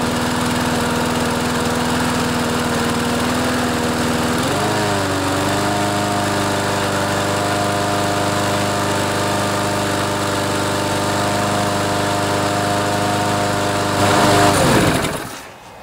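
Briggs & Stratton 6.75 series single-cylinder lawn mower engine running steadily, then speeding up to full throttle about four and a half seconds in and holding there. Near the end it winds down and stops. At full speed it is not quite revving up as much as it should.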